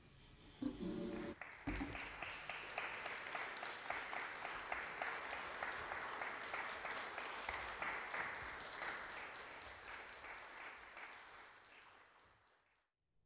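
Concert audience applauding after a cello performance. The clapping starts about a second and a half in, holds steady, and fades away near the end. Just before it there is a brief, loud pitched sound.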